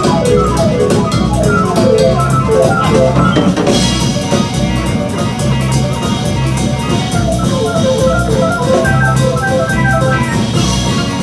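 Live jazz from a small band of upright double bass, grand piano and drum kit: quick runs of notes over a walking low line, with steady cymbal ticks.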